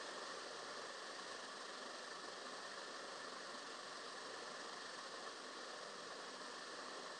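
Faint, steady hiss of background noise with no distinct sounds standing out.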